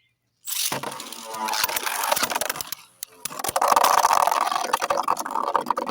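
Two 3D-printed Beyblade spinning tops launched into a stadium, starting suddenly about half a second in, then whirring and clattering against each other with rapid clicks. The sound dips briefly near the middle, then comes back louder.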